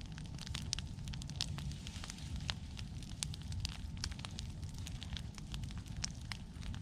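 Open wood fire of cut pine and brush crackling, with irregular sharp pops over a steady low rumble.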